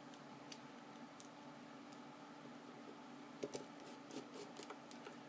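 Faint scattered clicks and taps of small metal and G10 parts of a folding knife being handled and fitted together, over a steady low hum.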